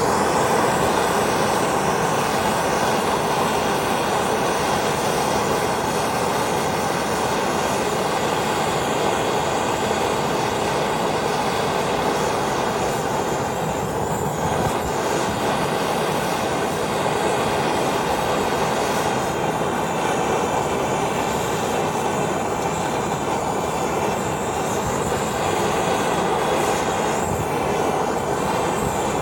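A gas brazing torch burning with a steady rushing noise that holds an even level throughout.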